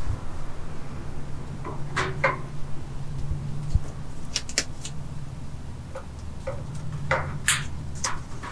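Scattered small clicks and knocks of white PVC drain pipe and fittings being handled and pushed onto a shower drain, over a steady low hum.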